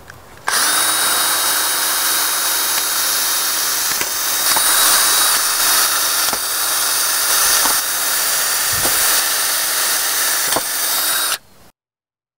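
Cordless drill with a 5/32-inch bit running continuously as it drills holes through a 3/4-inch PVC pipe, a steady motor whine with a few sharp clicks along the way. It starts about half a second in and cuts off abruptly near the end.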